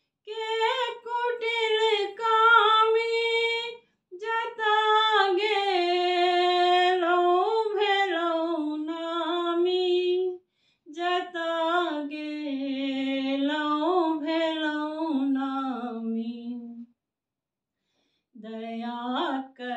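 A woman singing a traditional Maithili Bhagwati geet unaccompanied, in long held, wavering phrases with short breaths between them. She falls silent for about a second and a half near the end before the next line.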